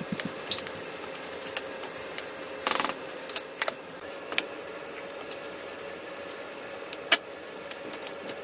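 Scattered sharp clicks and light clatter of kitchen utensils during cooking, with a short rustling burst about two and a half seconds in, over a steady hum.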